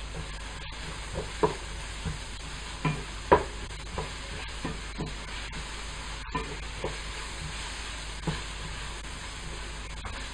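Vegetables and mushrooms sizzling in a frying pan with a steady hiss while a wooden spatula stirs them, its edge knocking and scraping against the pan at irregular moments.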